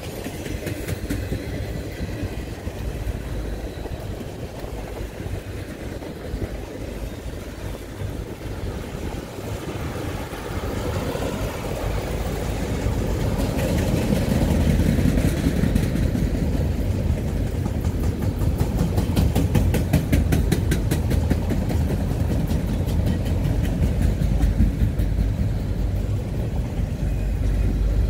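Norfolk Southern freight train's autorack cars rolling past: a steady rumble of steel wheels on rail that grows louder about halfway through, with a fast, even run of clicks in the last third.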